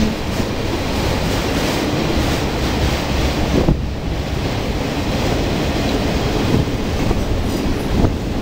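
Freight train of autorack cars rolling past close by: a steady rumble of wheels on rail, with wind buffeting the microphone. There are two brief louder clunks, a little under four seconds in and near the end.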